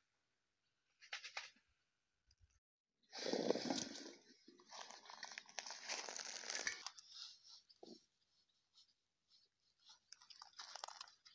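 Olives being stirred and shifted by hand in a plastic crate: a dry rustling crunch of the fruit rubbing and rolling together. It comes in short bursts, with a longer stretch from about three to seven seconds in.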